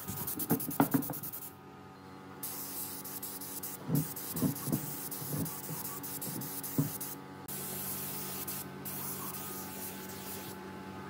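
Compressed-air spray gun hissing in four stretches with short breaks between, as a wood finish is sprayed onto a carved wooden vase. A few light knocks come in the middle, over a steady low hum.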